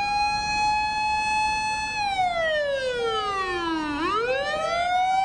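Japanese fire engine's siren wailing: a high held tone that starts sliding down about two seconds in, bottoms out about four seconds in, then climbs back up.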